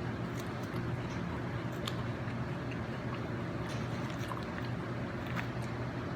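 Faint chewing and small mouth clicks from someone eating, over a steady low hum.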